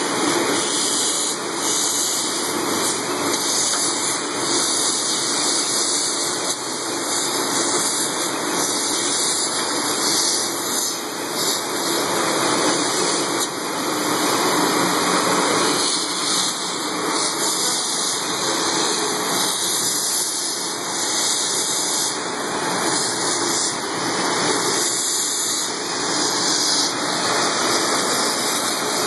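Aloe vera brush washer running: water spraying from rows of overhead nozzles onto turning brush rollers, a steady rushing of water with machine noise under it.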